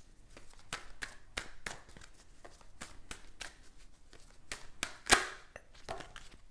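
Tarot deck being shuffled by hand: a run of short, irregular card taps and slaps, a few a second, with one louder snap about five seconds in.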